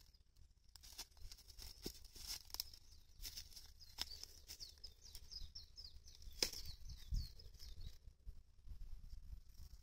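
Rabbits biting and chewing a raw cabbage leaf: a quick, irregular run of small crisp crunches and tearing clicks, with a few louder bites among them.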